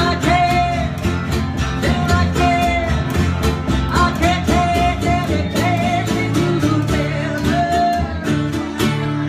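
A song with a voice singing held notes over guitar and a steady, even beat.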